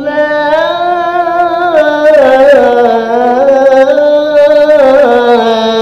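A male qori's solo voice in melodic Quran recitation, holding one long melismatic phrase without a breath. The pitch sways through small ornamental turns, steps down about halfway, and settles on a steady held note near the end.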